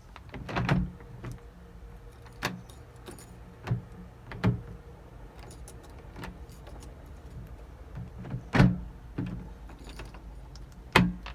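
Keys jangling, with a series of sharp metallic clicks and clunks as a key is turned in a door lock and the lock works smoothly, its door alignment just fixed. The loudest clunk comes about two-thirds of the way through.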